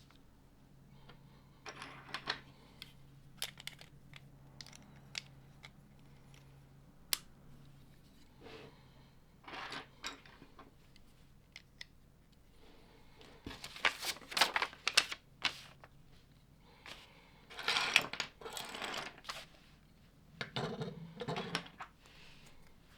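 Small plastic LEGO pieces clicking and clattering as they are handled and snapped together, in irregular sharp clicks with a few busier bursts of clatter in the second half.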